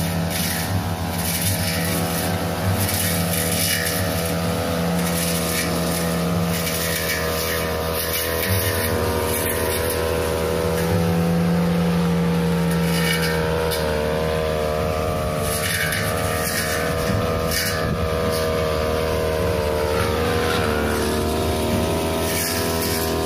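Backpack brush cutter engine running steadily at working speed while its shaft-mounted blade trims a leafy hedge, the engine note rising and falling a little as it cuts. Short crackling bursts come as the blade chops through leaves and twigs.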